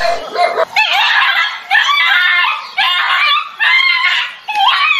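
Dog yelping and squealing in fright, a rapid run of high-pitched cries, each under a second.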